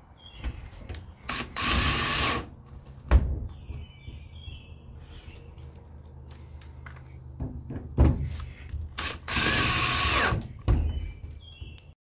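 Cordless drill driving screws into a plywood wall, in two bursts of about a second each, with a couple of sharp knocks between them.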